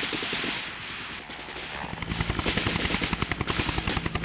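Rapid automatic gunfire, with the rhythmic thumping of a helicopter's rotor coming in about halfway through and carrying on under it.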